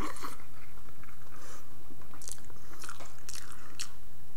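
Faint, irregular chewing sounds over a steady low electrical hum.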